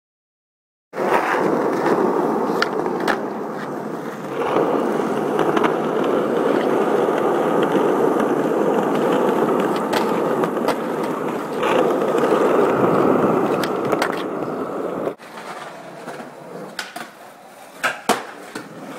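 Skateboard wheels rolling loudly over rough pavement, with sharp clacks of the board hitting the ground. The rolling drops off suddenly about three-quarters of the way through, giving way to quieter rolling broken by several sharp board clacks.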